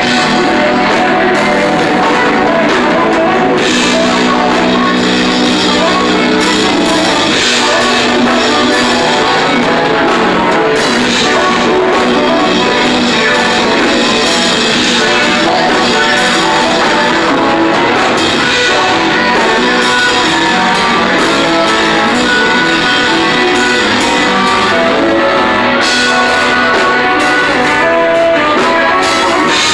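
Live band playing loud, steady music, with guitar and drum kit.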